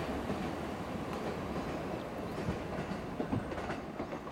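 Electric commuter train running away along the track, its wheels clicking over the rail joints, over a steady rumble of wind on the microphone.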